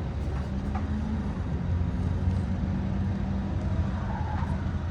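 A steady low machine hum with a constant pitch.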